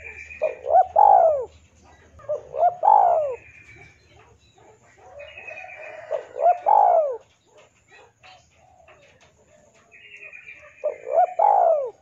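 Spotted dove cooing four times, a few seconds apart; each phrase is two short notes and a longer arching coo. Higher chirping from other birds sounds faintly in between.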